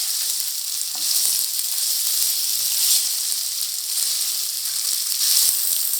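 Soya chunks (meal maker) sizzling as they fry lightly in oil in a pan: a steady hiss, with a couple of faint clicks about a second in.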